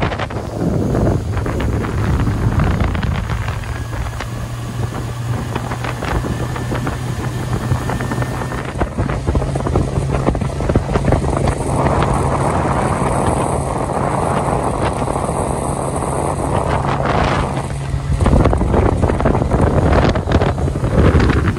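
Suzuki outboard motor running steadily at cruising speed, a low, even hum, with wind noise on the microphone and water rushing past the hull.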